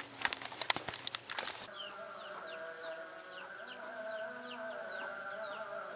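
Rustling and knocking as the camera is handled, loudest just before it stops. Then high, short falling bird chirps, two to three a second, over a steady hum with several held tones.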